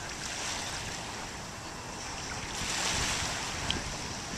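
Ocean surf washing on the beach, a steady rush of waves that swells louder about two and a half seconds in, with some wind buffeting the microphone.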